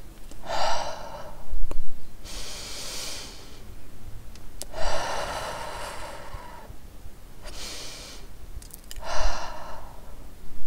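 Heavy, audible human breathing: five long breaths, out and in by turns, each about a second long, with a few soft thumps between them.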